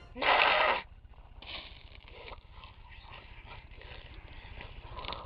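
A teenage boy's short, loud, raspy snarl, about half a second long, followed by faint growling through bared teeth.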